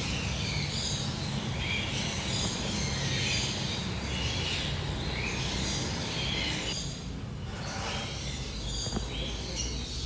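Many caged birds chirping and calling in short, high notes, over a steady low hum.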